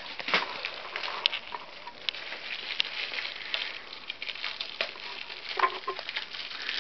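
Rustling and irregular sharp clicks of the camera being handled close to its microphone, over a steady hiss.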